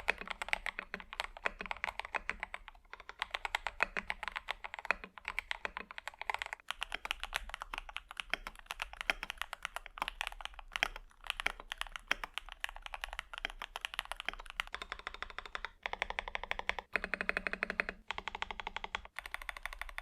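Fast typing on two custom mechanical keyboards, a budget CIY Tester 68 and a KBD67 Lite R3: a dense stream of keystroke clacks, several a second, broken by a few abrupt cuts where the character of the clacking changes between keyboards or takes.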